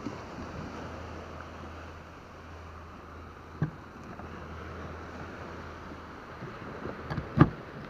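Steady wind and surf noise, with a short knock about three and a half seconds in and a few louder knocks near the end.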